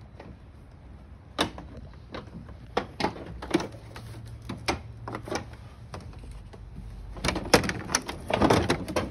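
Plastic front-end clip of a 2017 Chrysler Pacifica knocking and clicking as it is worked around over its locating pins. Irregular single knocks, with the loudest run of knocks and rattles near the end.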